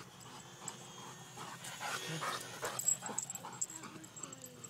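A dog panting hard in quick breaths, worn out from chasing.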